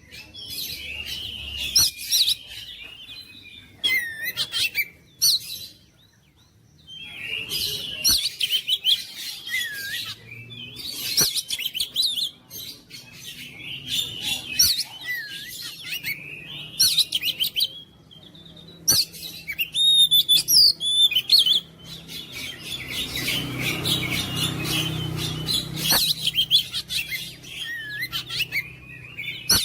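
Oriental magpie-robin (kacer) singing a loud, varied song of quick sliding whistles and chattering notes, in phrases broken by short pauses. A low noise sits beneath the song for a few seconds about three-quarters of the way in.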